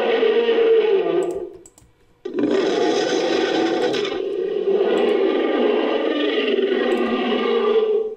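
Designed creature vocalization layered from animal and monster sound effects: one low call fades out about a second and a half in, then after a short pause a long drawn-out call of about six seconds.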